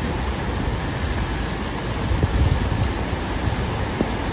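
Steady hiss of heavy rain and rushing floodwater, with vehicles driving through the deep water on the flooded road.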